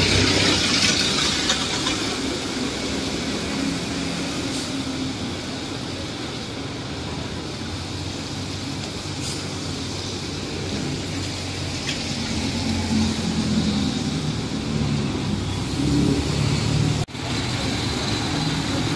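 Street traffic on a wet road: vehicle engines running and tyres hissing as they pass. A jeepney's engine runs close by in the later part.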